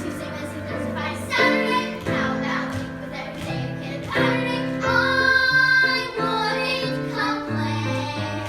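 A child singing a song with instrumental accompaniment, held sung notes over a moving bass line.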